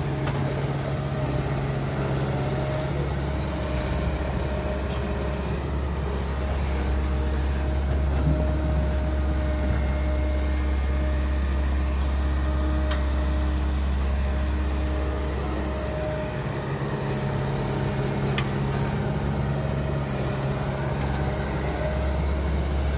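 Caterpillar hydraulic excavator's diesel engine running steadily while it digs and loads dirt into a dump truck. The engine note shifts to a deeper tone a few seconds in and changes back about two-thirds of the way through.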